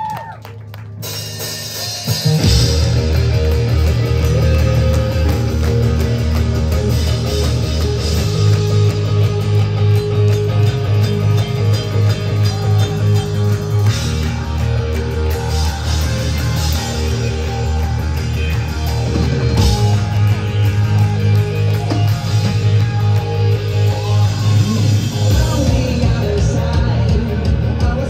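Live rock band with electric guitars playing a song's opening, the full band coming in loud about two seconds in over sustained low bass notes.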